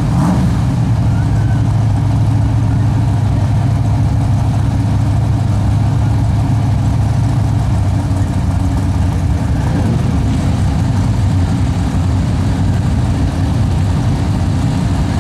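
Car engines idling steadily at a drag strip start line, a Dodge Magnum SRT-8's 6.1-litre Hemi V8 among them, with a deep, even rumble and no revving.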